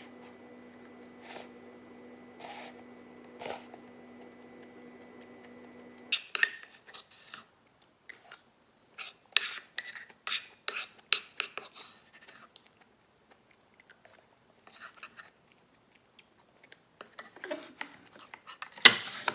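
Eating sounds: chewing, with utensils clinking against dishes in quick clusters and a loud clink near the end. A steady appliance-like hum runs under the first six seconds, then stops.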